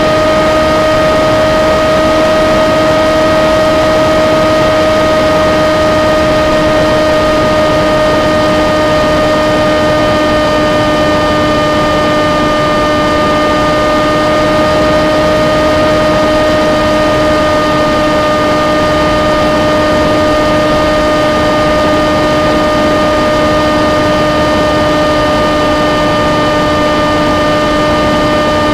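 Steady drone of an engine- or motor-driven propeller, holding one pitch with only a very slight sink towards the end.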